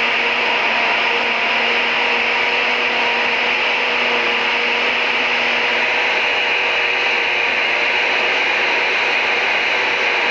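Countertop blender running steadily, blending buttermilk, strawberries and sugar into lassi: an even whirring hum.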